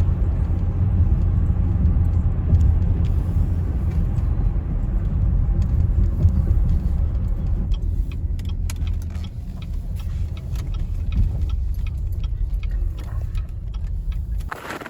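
A car driving, its steady low road rumble the loudest sound, with light clicking and jingling over it from about halfway through. The rumble stops shortly before the end.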